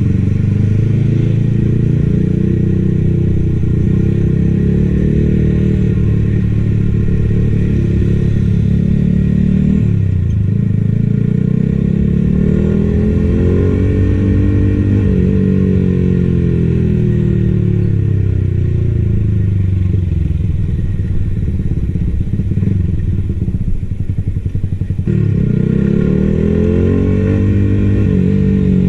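Yamaha XSR155's single-cylinder engine running under the rider. Its pitch climbs and falls as it is ridden through the gears, eases off briefly, then picks up again near the end.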